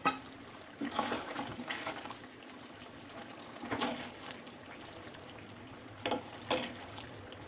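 A metal ladle stirring thick chicken karahi gravy in a metal kadai: several irregular scrapes and clinks against the pan over a faint steady simmering hiss.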